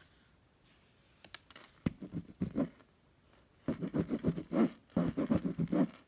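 Scratchy rubbing on the woven fabric of a storage case in quick strokes, about four a second, in two spells. It sounds like the scorched spot is being scrubbed to see whether the burn mark will come off.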